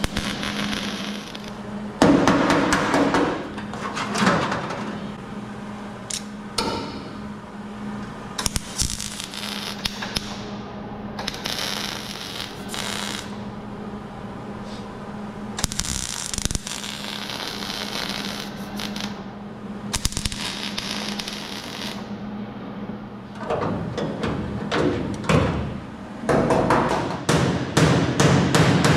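MIG welder plug-welding sheet-steel body panels: several separate spells of crackling sizzle, each a second or two long, over a steady low hum. Near the end comes a quick run of sharp metallic knocks.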